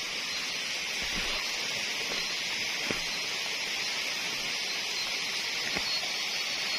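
Steady high-pitched hiss of tropical forest ambience, with a faint thin whine held near the top of it.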